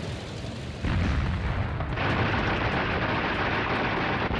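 Battle sound effects: an explosion about a second in, then a continuous rumble and hiss of artillery fire and blasts.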